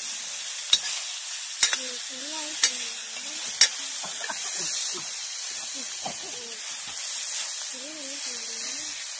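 Tomatoes, onions and chicken sizzling in a kadai over a wood fire as a metal ladle stirs and scrapes them. The ladle clinks sharply against the pan about four times in the first four seconds.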